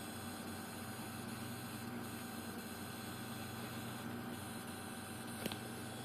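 Pentium III computer running with a steady hum and whine over hiss, the strange noise it is making. The hiss swells faintly about every two seconds, and there is one sharp click near the end.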